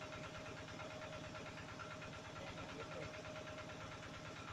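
Steady, fast-pulsing running of a small engine, with a faint steady tone above it.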